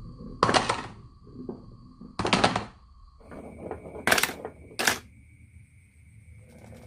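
Marbles rolling and clattering down a wooden marble run, with a rattle of small clicks and four loud clattering bursts, the first about half a second in and the last near five seconds.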